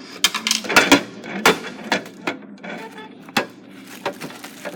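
A run of irregular hard knocks and thuds, about a dozen in under five seconds, loudest and most crowded in the first second and a half.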